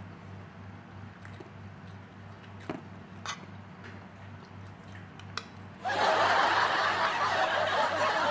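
Faint clicks of eating, then about six seconds in a sudden, louder burst of crowd laughter that keeps going.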